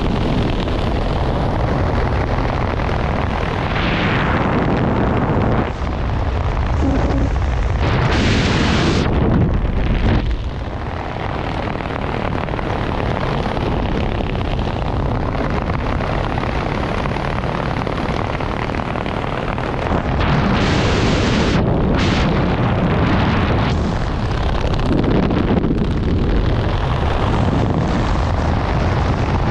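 Wind rushing over a head-mounted camera's microphone during a parachute descent, a steady low rush with two louder gusts partway through.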